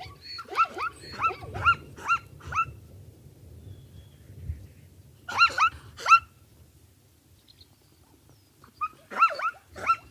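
Zebra calling: high, yelping barks in quick runs, three bouts of several calls each, over a faint low rumble.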